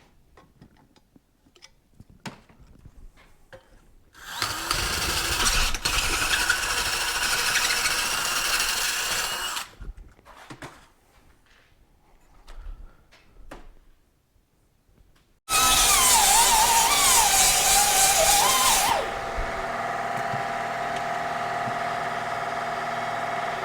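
Electric drill boring out the broken foot-peg boss on a Yamaha AT-1 motorcycle's metal swing arm. It runs for about five seconds, followed by a few light clicks of handling. A second run starts about two-thirds of the way in with a wavering squeal as the bit cuts, then settles into a steadier whine.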